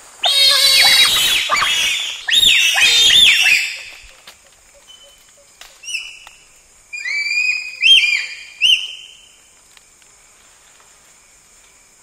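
A group of bonobos (pygmy chimpanzees) giving high-pitched calls: a loud burst of overlapping calls for about four seconds, then a few shorter calls between about seven and nine seconds in. A steady high-pitched drone runs underneath and fades out near the end.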